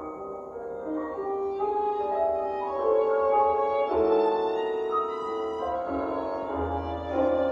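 Slow, sustained bowed-string music, led by violin with a low piano underneath, holding long notes that change about once a second and swelling slightly louder partway through.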